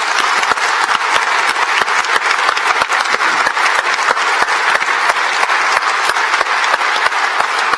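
A large audience applauding loudly and steadily, a dense mass of many people clapping.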